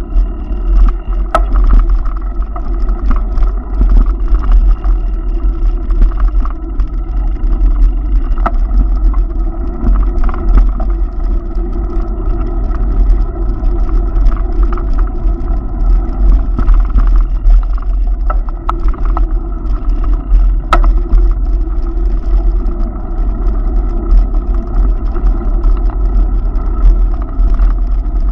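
Steady city street ambience: road traffic under a heavy low rumble, with a few sharp clicks now and then.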